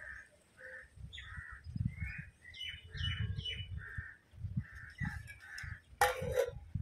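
Crows cawing over and over in short calls, with a few quick higher chirps from a smaller bird. About six seconds in, a brief clatter as a steel plate is set over the cooking pot.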